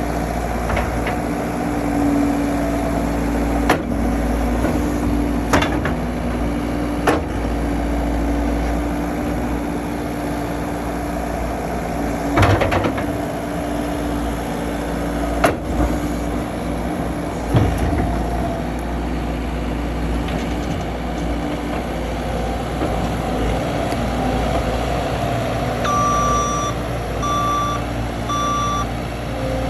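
2017 John Deere 324E skid steer's diesel engine running steadily, with several sharp knocks and clunks from the machine working. Near the end its backup alarm beeps three times as it reverses.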